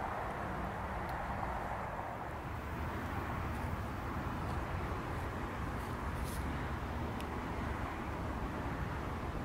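Steady outdoor background noise: a low rumble and hiss with no clear source, and a few faint high ticks around the middle.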